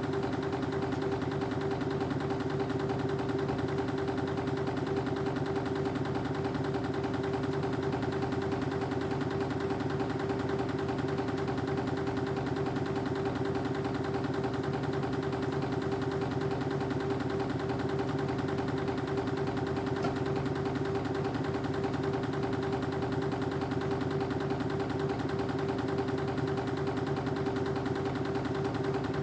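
Spring-wire machinery running steadily: a fast, even mechanical clatter over a steady hum.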